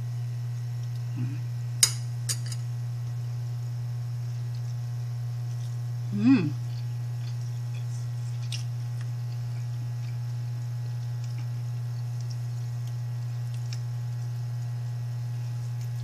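Steady low hum throughout, with light clinks of a metal spoon against a stainless steel rice pot, twice in quick succession about two seconds in and once more near nine seconds. A brief voiced 'mm' with falling pitch about six seconds in.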